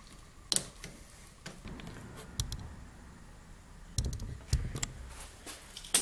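Scattered sharp clicks and light knocks of hands fitting hoses and parts in a snowmobile engine bay, about five spread over a few seconds.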